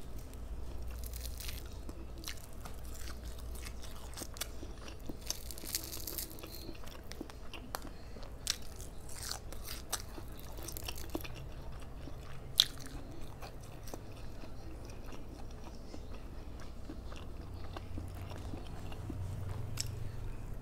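Close-miked eating of fried flounder: biting and chewing with crunching of the crisp fried skin, and small crackles as fingers pull the fish apart. One sharper click stands out a little past halfway.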